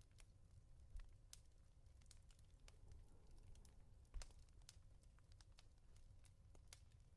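Faint, soft pats on a pillow, a low dull thump about every three seconds (twice here), over a light scattered crackle of a fireplace.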